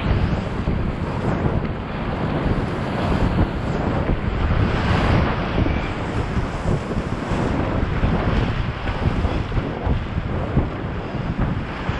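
Loud rushing whitewater rapids churning around a kayak, with wind buffeting the microphone.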